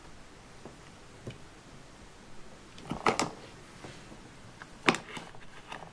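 Light clicks and knocks of a plastic Play-Doh cookie-maker as its heart-shaped cutter is pressed down onto the dough and handled: a few taps about three seconds in and one sharp click near five seconds.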